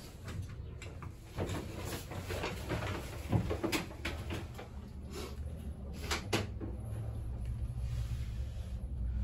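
Elevator car travelling: a steady low hum of the ride with scattered clicks and knocks from the car.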